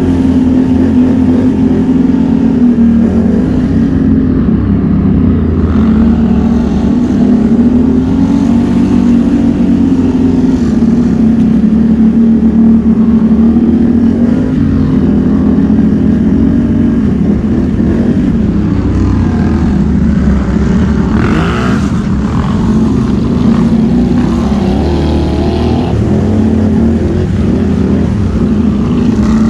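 ATV engine running steadily, heard close up from on board, its pitch rising and falling as the throttle is worked.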